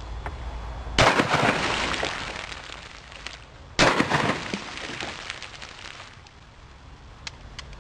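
Two shotgun blasts about three seconds apart, each dying away over a second or two, with a couple of faint clicks near the end.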